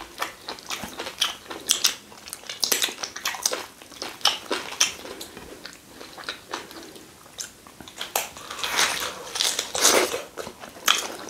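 Close-miked eating sounds: two people chewing and smacking their lips on fufu and ogbono soup with meat, a run of short, irregular wet clicks.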